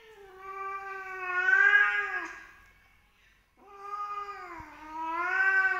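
Cat giving two long, drawn-out yowls of about two seconds each, with a short pause between them.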